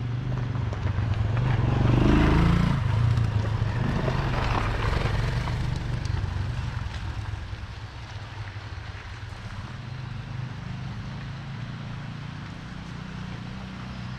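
Motorcycle engine running steadily at low revs, with a louder swell of engine and road noise about two seconds in that fades away over the next few seconds.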